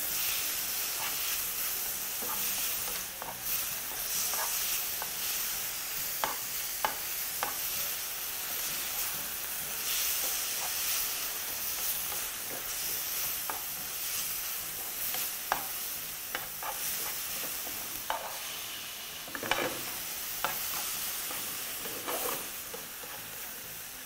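Strips of lamb sizzling steadily in a frying pan over high heat, with scattered clicks and scrapes as tongs turn the meat against the pan.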